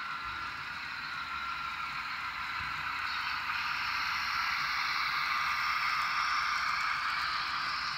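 N scale model freight train led by a Broadway Limited Imports Union Pacific diesel locomotive running past close by, a steady rushing rumble that grows louder a few seconds in as the locomotive and its cars go past.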